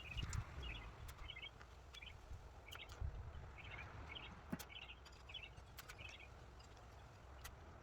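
A bird chirping, short clusters of notes repeated about every half second. There are occasional sharp clicks and low knocks, the loudest right at the start.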